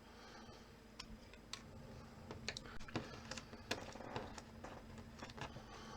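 Faint, irregular light clicks and taps from small tools and parts being handled on a smartphone under repair, about a dozen over a few seconds, over a low steady hum.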